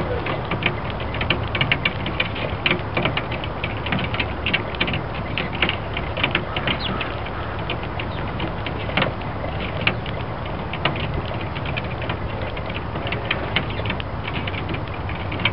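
Sparrows pecking seed off a glass table top: rapid, irregular sharp taps like Morse code or typing, over a steady low background rumble.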